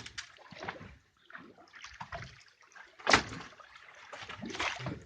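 Water sloshing and splashing at the side of a boat, with two short, loud splashes or knocks, about three seconds in and again near the end.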